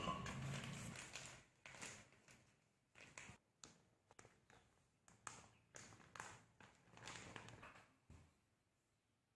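Faint, irregular crinkling of a plastic bag of flour as flour is poured out of it onto a plate; the crinkling stops about a second before the end.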